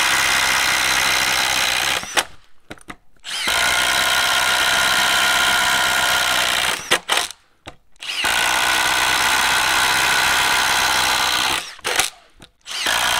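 Milwaukee Gen 3 Fuel brushless impact driver on its highest speed setting, boring 1-inch holes in a wooden board with a spade bit. It runs flat out in long steady bursts and stops briefly three times between holes.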